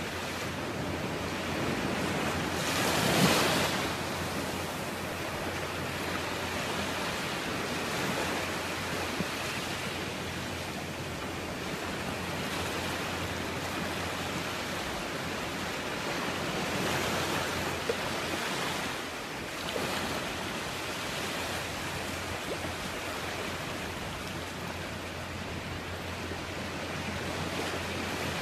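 Small ocean waves breaking and washing up onto a sandy beach: a steady surf hiss that swells with each wave, loudest about three seconds in.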